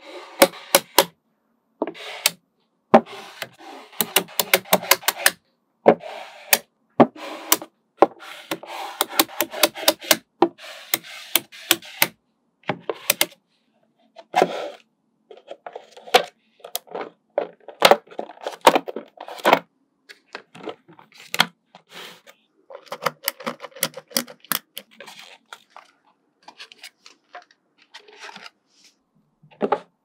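Small magnetic balls clicking and snapping together, with short rattling runs as strings of balls are handled and set in place. The clicks come irregularly, some in quick runs, with brief silent gaps between.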